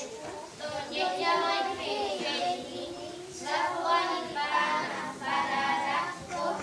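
A small group of children singing together into microphones.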